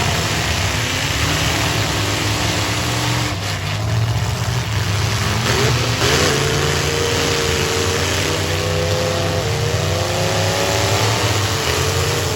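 Several V8 demolition derby cars running together, their engines revving up and down with pitches rising and falling, over a constant noisy din.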